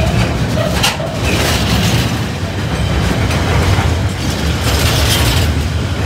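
Freightliner freight train's wagons rolling over the level crossing: a steady heavy rumble with a few sharp clanks from the wheels and couplings.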